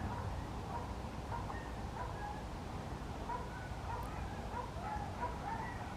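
Dog barking faintly and repeatedly with short barks, over a steady low background noise.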